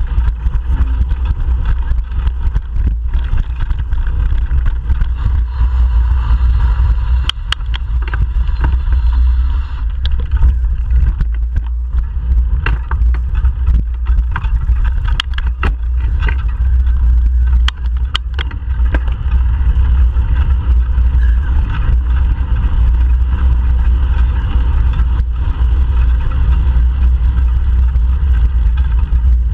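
Steady low wind rumble on an action camera's microphone while cycling, over the noise of passing road and highway traffic. Scattered sharp clicks and knocks from bumps in the path.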